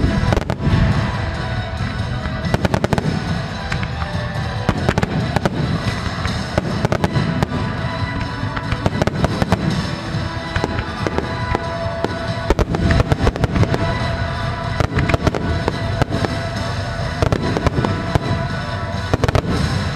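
Nomura Hanabi Kogyo aerial firework shells bursting in quick succession, with many sharp bangs, while music plays throughout.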